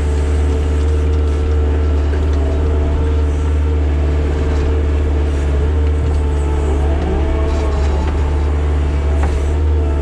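Heavy digging machine's engine running steadily at a constant speed, heard close.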